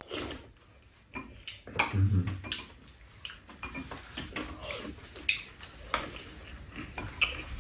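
Spoon and chopsticks clinking against bowls and a pan at a meal: scattered light clicks and clatters, irregular throughout.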